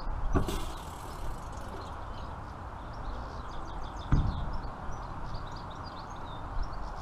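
Hydrolastic suspension hand pump being worked: two dull knocks about four seconds apart over a steady hiss.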